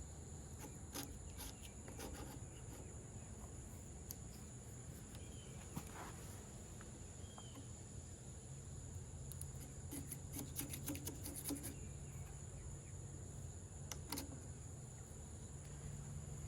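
Insects, likely crickets, chirring steadily in a high, thin tone in the background. A few faint clicks and taps sound over it, bunched together about ten to eleven seconds in.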